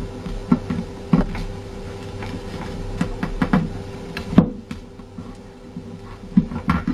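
A paper airplane's sheet is handled and creased by hand, making scattered paper crinkles and taps; the sharpest comes about four and a half seconds in. A steady faint hum runs underneath.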